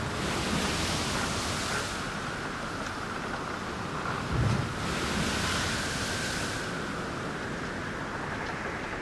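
Sea waves breaking and washing in: a steady surf hiss that swells twice, about four and a half seconds apart, each surge opening with a low thud.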